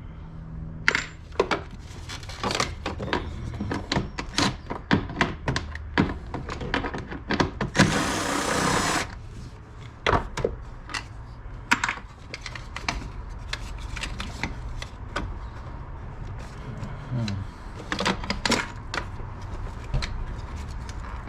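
Hand tools working small fasteners on the engine bay: a long run of irregular clicks and knocks of metal and plastic, with a noisy burst lasting about a second near the middle.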